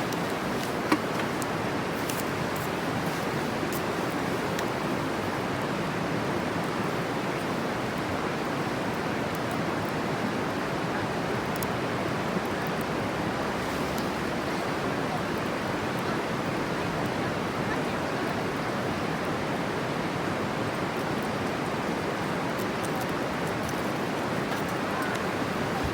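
Steady rushing background noise with a few faint crackles from a bonfire, and one sharper pop about a second in.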